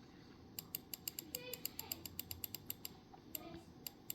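Computer mouse scroll wheel ratcheting, a quick even run of small clicks at about nine a second for two seconds, then a brief pause and a few more clicks near the end.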